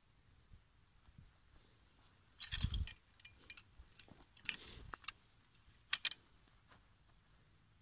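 A steel foot-hold trap and its chain being handled over dry grass: a few scattered metallic clinks and rustles, the loudest with a dull thud about two and a half seconds in, more near four and a half and six seconds in.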